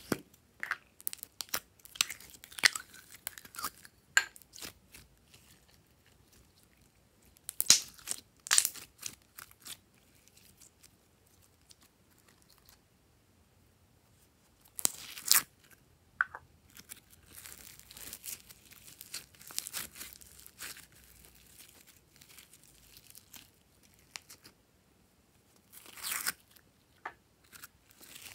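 Plastic slime tubs being handled and opened, with scattered sharp clicks and a loud snap of a lid about fifteen seconds in. Near the end comes crackling from floam slime, its tiny foam beads rubbing as it is handled.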